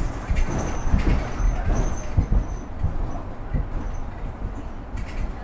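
City bus running, heard from inside the passenger cabin: a steady engine and road rumble with irregular knocks and rattles.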